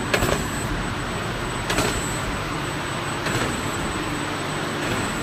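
Automatic gangjeong snack-bar forming machine running: a steady mechanical noise with a thin high whine and a short knock about every one and a half seconds.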